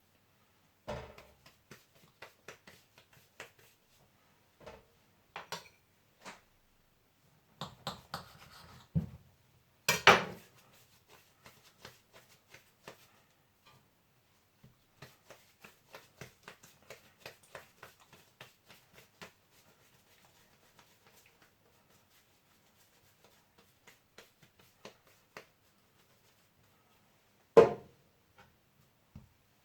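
Kitchen handling sounds: scattered light taps and scrapes of a knife and utensils on a work surface as dough is cut into slices, with two louder knocks, one about ten seconds in and one near the end.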